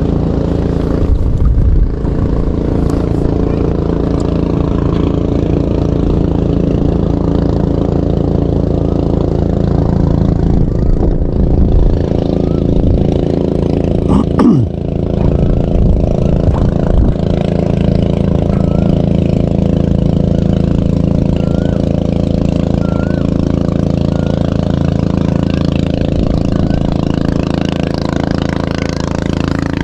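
Boat motor running steadily with an even, unchanging drone. A brief knock about halfway through.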